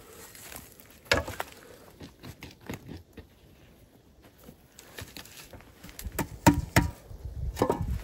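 Shovel digging in loose earth: irregular scrapes and knocks with soft thuds of soil, a sharper knock about a second in, and a run of heavier thuds near the end.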